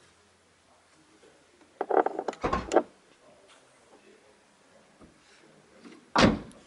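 Volkswagen Scirocco car door shut with a single solid thump about six seconds in. About two seconds in comes a quick run of sharp clicks and knocks.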